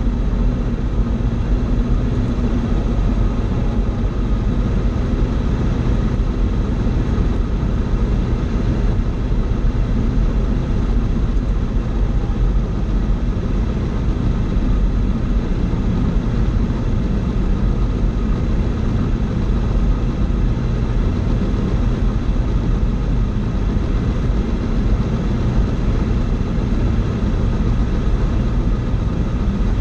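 Fly Synthesis Storch S ultralight aircraft's engine and propeller running steadily, heard from inside the cockpit.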